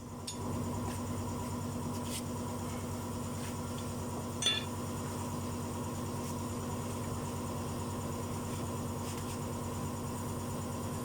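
A steady mechanical hum at an even level, with one short sharp click about four and a half seconds in.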